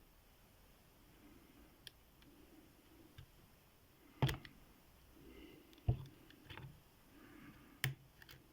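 Hook pick and tension wrench working inside a cast-iron padlock: faint scraping and small clicks, with three sharp louder clicks about four, six and eight seconds in. One of these snaps sounded bad but was not a pick breaking.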